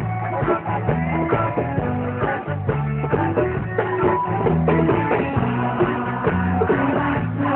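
A live rock band plays an instrumental passage: strummed guitar over bass and drums with a steady beat.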